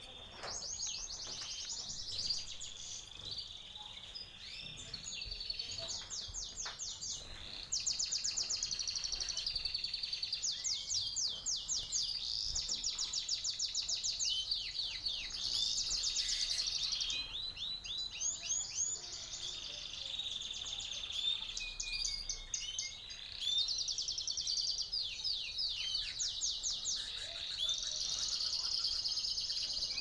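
Canaries singing: long runs of fast, high repeated trills, one run after another with short breaks.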